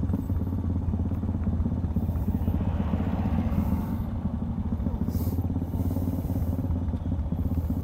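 Several motorcycles idling together at a standstill, a steady low engine thrum with an even rapid pulse.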